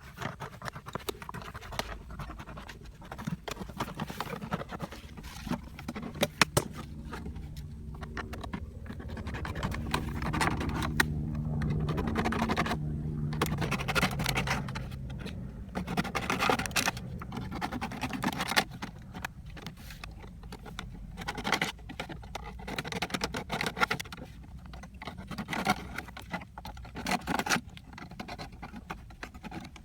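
Irregular close scratching, scraping and clicking noises. A low hum builds for several seconds through the middle.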